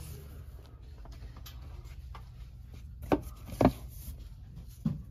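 Paperback books being handled on a store shelf: spines rubbing and sliding, with two sharp knocks about three seconds in, the second louder, and a third near the end, over a steady low background hum.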